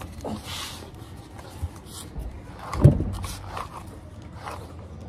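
Soft swishes and small clicks of a grooming brush worked through a husky puppy's fur, with one brief low vocal sound about three seconds in.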